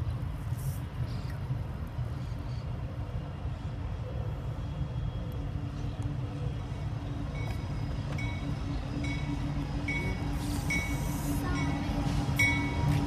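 Union Pacific diesel locomotive approaching, its engine hum growing louder over a low rumble. From about seven seconds in, a bell rings about twice a second, the locomotive's bell sounded as it runs through town.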